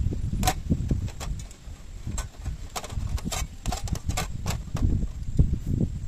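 Several light clicks and knocks, scattered unevenly, over a low, uneven rumble.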